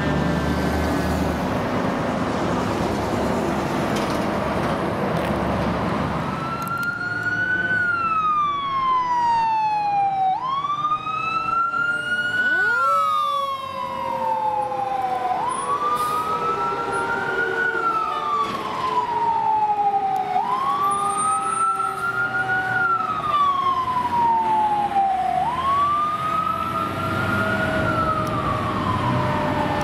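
A passing fire engine's engine and road noise, then a fire engine's siren wailing up and down, each cycle climbing quickly and falling more slowly, about every five seconds. A lower, steadier siren tone slowly falls in pitch beneath it.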